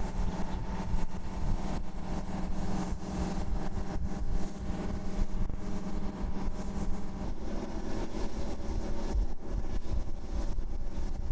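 Heavy tow tractor engine running steadily as it pulls the external tank transporter slowly past, under a low rumble. The engine hum drops away about seven seconds in, leaving the rumble.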